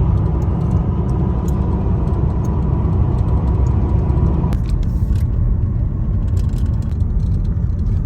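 Steady low rumble of a motor vehicle driving, with a thin whine that cuts off suddenly a little past halfway through.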